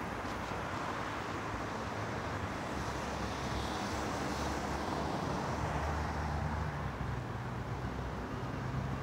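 Steady road traffic noise from nearby city streets, with a low engine hum from a passing vehicle joining in about halfway through.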